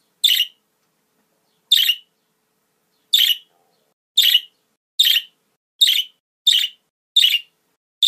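Budgerigars giving short harsh calls, eight in the span, separated by silence and coming closer together toward the end.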